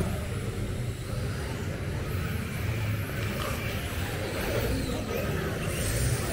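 Electric RC drift cars running on a carpet track, their motors whining up and down in pitch as they are throttled through the turns, over a steady low rumble.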